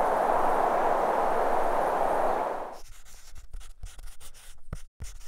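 A steady outdoor rushing hiss cuts off abruptly a little under three seconds in, followed by quieter, irregular scratching and tapping of chalk writing on a chalkboard.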